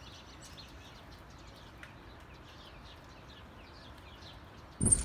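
Birds chirping faintly in the background, a quick run of short downward-sweeping chirps. Just before the end a sudden loud clatter cuts in.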